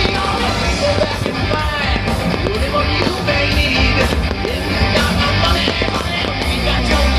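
Loud, rock-style show music with a heavy, driving beat and sung vocals, from the fireworks show's soundtrack.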